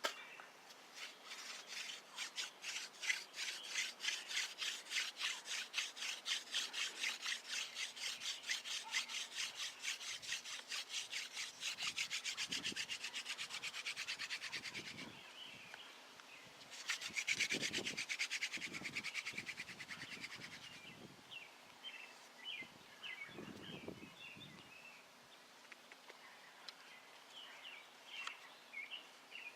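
Horseweed hand drill spindle spun back and forth between the palms in a sycamore hearthboard notch: fast, rhythmic wood-on-wood rubbing in two bouts, a long one and then, after a short pause, a shorter, louder one that stops about two-thirds of the way through. Birds chirp in the quieter end.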